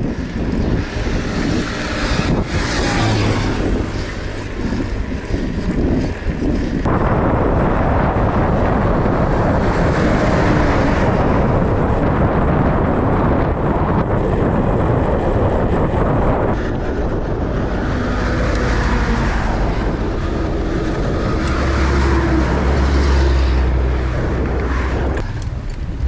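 Wind rushing over an action camera's microphone on a bicycle ride at speed, mixed with the sound of passing highway traffic. A low engine drone from a passing vehicle stands out near the end.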